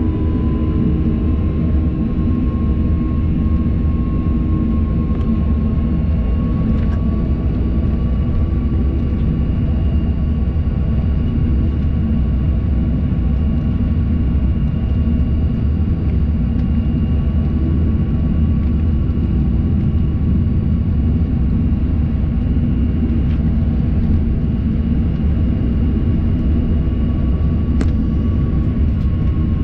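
A high-wing jet airliner's engines running steadily at taxi power, heard from inside the cabin: a dense low rumble with a steady whine over it.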